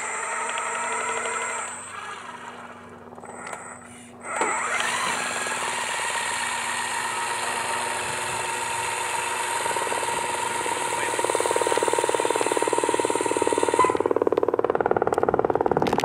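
Remote-controlled tracked aircraft tug's drive motors whining as it runs across the tarmac, the whine holding steady for several seconds. A fast mechanical rattle builds near the end and becomes the loudest sound.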